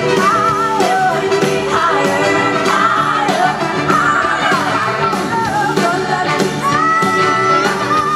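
A live soul band plays, with a woman singing lead over guitar, bass, drums and a horn section. The sung line bends and slides in pitch over a steady beat.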